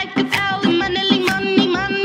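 Upbeat dance music: a fast, wavering lead melody over a bouncing bass line and a steady beat.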